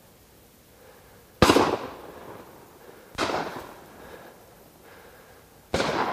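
Three shotgun shots fired at ducks, the first the loudest, spaced roughly two seconds apart, each followed by a rolling echo that dies away over about a second.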